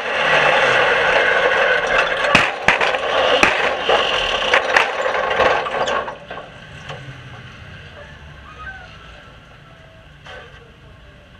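Small dirt-track race car heard from inside its cab, running loudly with sharp rattles and knocks from the body and frame. About six seconds in the noise falls away suddenly as the car comes to a stop, leaving only a faint low background.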